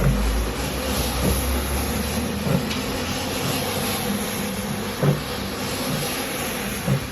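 A cleaning machine runs steadily with a hiss, and there are a few short knocks about a second or two apart. A deeper rumble underneath stops about two seconds in.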